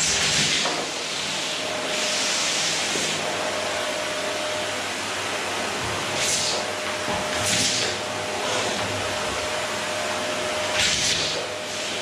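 Electrolux canister vacuum cleaner running steadily with a constant motor whine, its nozzle worked over a wooden floor; the hiss of the airflow swells briefly several times.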